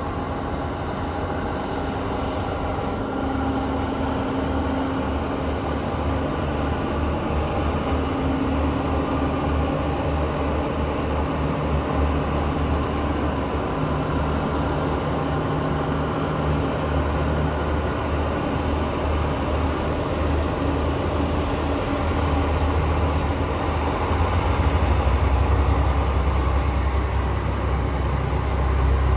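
Irish Rail 29000 class diesel multiple unit running past at low speed, its underfloor diesel engines giving a steady rumble with a low engine drone, growing louder about three-quarters of the way through as the train goes by.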